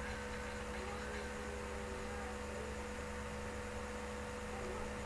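Steady electrical mains hum: several fixed tones held over a constant background hiss.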